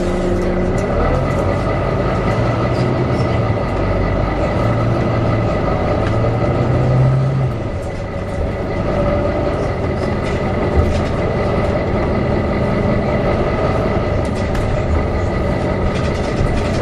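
Volvo B9TL bus running, its diesel engine note shifting in pitch while the engine cooling fan gives a steady hoover-like whine made of several high tones held throughout.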